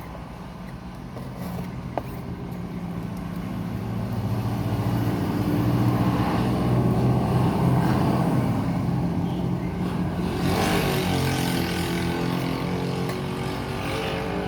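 A motor vehicle's engine running, its note growing louder from about four seconds in. Near ten seconds in comes a rush of noise and the engine note rises.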